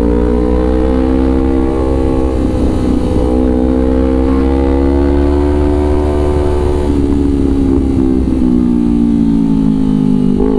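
Kawasaki Ninja 250 FI's parallel-twin engine through a Villan New ZX1 aftermarket exhaust, riding along with the engine note rising and falling with the throttle, dipping briefly about two and a half seconds in and twice more near the end. Wind rumble on the microphone underneath.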